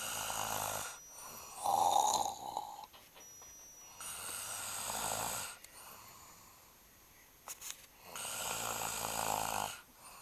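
A man snoring in his sleep: four long snores a few seconds apart, the loudest about two seconds in.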